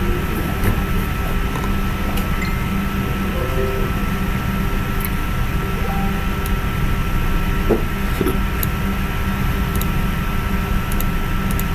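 Steady low room hum and hiss from running equipment, with a thin steady whine and a few faint clicks scattered through.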